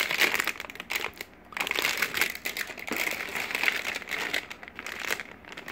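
Clear plastic bags holding plastic model-kit runners crinkling as they are handled and moved. There is a brief lull a little over a second in.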